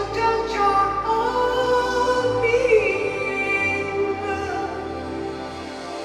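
Progressive rock band playing live: a high lead vocal with vibrato over sustained keyboard chords, deep bass notes and electric guitar.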